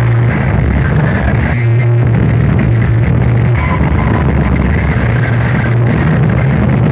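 Harsh noise music: a loud, dense wall of distorted noise over a steady low hum, which drops out briefly about one and a half seconds in.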